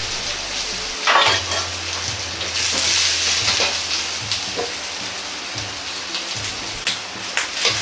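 Cabbage sizzling steadily in a wok over a high flame, with a few sharp clinks of the ladle against the wok, the loudest about a second in and a couple near the end.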